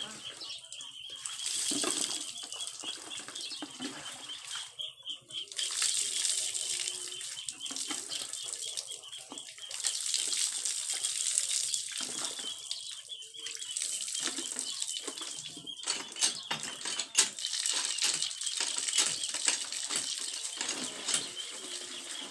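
Water pouring and splashing into a plastic bucket in repeated gushes a few seconds apart, with scattered knocks and splashes.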